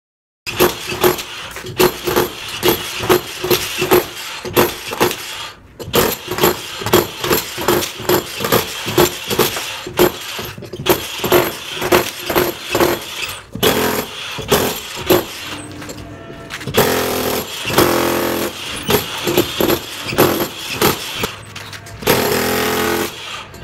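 Concrete being chipped out of a wall around a buried water-pipe stub: a run of sharp strikes about two a second, then near the end bursts of steady, rapid hammering.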